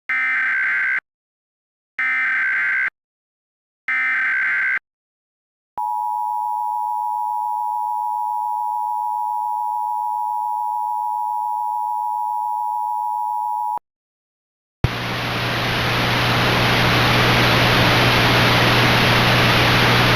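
Emergency Alert System SAME header: three one-second bursts of warbling data tones about two seconds apart. After a short gap comes the EAS two-tone attention signal, held steady for about eight seconds. About a second after it stops, a hiss of static with a low hum fades up.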